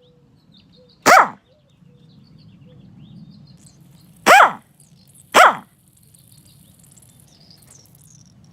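A dog barking three times: single loud barks about a second in, then two more about a second apart near the middle, over a faint low steady hum.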